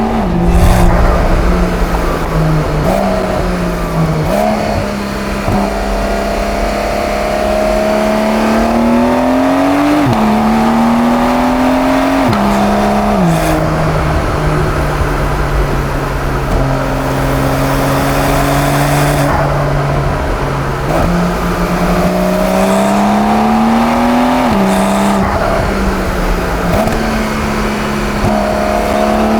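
Porsche 911 Carrera's twin-turbo flat-six pulling hard through the gears. The engine note climbs steadily, then drops abruptly at each quick upshift, about half a dozen times, with short stretches of steady cruising in between.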